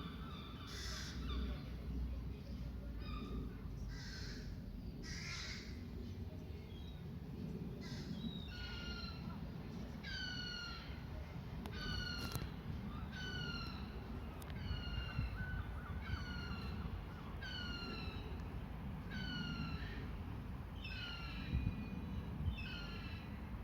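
Crows cawing: a few harsh calls in the first seconds, then a steady run of about a dozen caws, roughly one a second, each dropping slightly in pitch.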